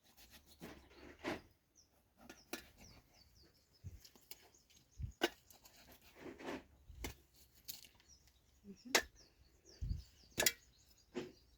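Knife chopping and cutting through a slaughtered chicken's legs: a series of irregular sharp knocks, one every second or two, with small birds chirping faintly behind.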